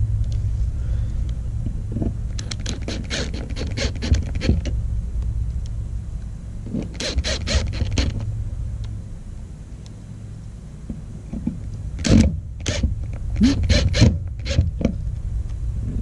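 Cordless impact driver running screws into the mounting plate of an RV stabilizer switch, in three groups of short bursts of rapid hammering: about two and a half seconds in, around seven seconds, and again from about twelve seconds. A steady low rumble runs underneath.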